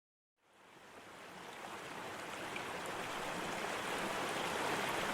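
A steady rushing hiss, like running water or surf, fading in after a moment of silence and growing slowly louder.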